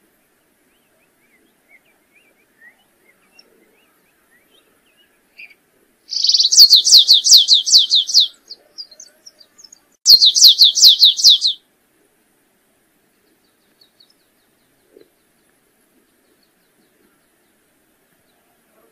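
Canário-rasteiro (stripe-tailed yellow finch) singing: two quick phrases, each a fast run of repeated high notes that sweep downward. The first comes about six seconds in and lasts about two seconds; the second starts about ten seconds in and is a little shorter.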